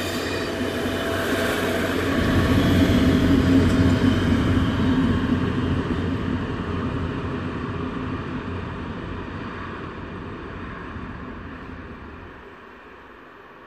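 HŽ series 7121 diesel multiple unit passing by, its engine running over the noise of wheels on the rails. It is loudest about three to four seconds in, then fades as the train pulls away.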